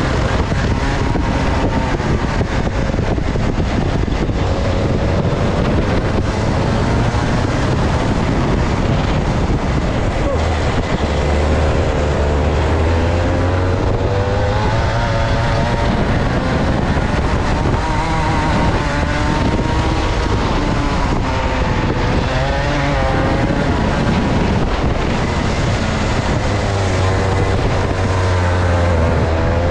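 Two-stroke go-kart engine at speed, its pitch rising on the straights and dropping into corners several times over, with wind noise on the microphone.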